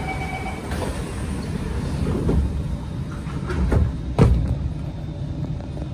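Inside a Kawasaki C151 MRT car: the door-closing chime ends and the doors shut with a thud. The train then starts pulling away with a low rumble and a few heavy knocks, the loudest just past four seconds in.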